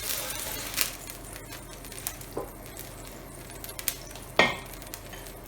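Oil sizzling on a hot iron griddle plate as an oiled half onion is rubbed over it to grease it. The sizzle dies down within the first second, then a few light knocks follow, the loudest about four and a half seconds in.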